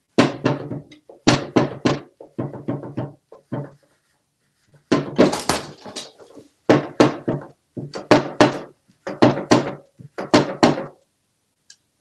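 Plush electric flopping-fish toy thrashing in a wooden drawer, its body slapping the drawer boards in runs of rapid thuds about a second long, with short gaps between.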